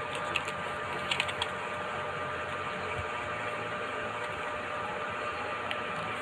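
Steady background room noise with a faint hum, broken by a few soft clicks about a second in.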